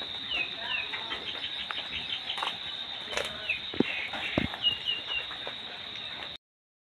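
Outdoor yard ambience: a steady high insect drone, with short falling bird chirps scattered through and the crunch and rustle of footsteps on dry leaves. The sound cuts out abruptly near the end.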